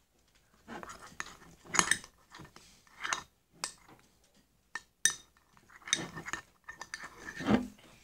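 A spoon stirring thick slime in a bowl, with irregular scrapes and clinks of the spoon against the bowl.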